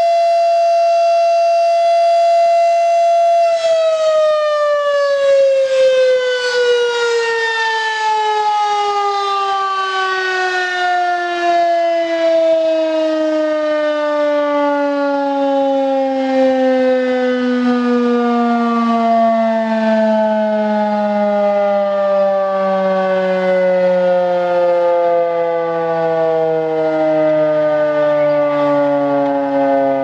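Federal Signal Model 5 electromechanical warning siren sounding a steady tone during its test, then cut off about three and a half seconds in and winding down, its pitch sliding slowly and smoothly lower for the rest of the time.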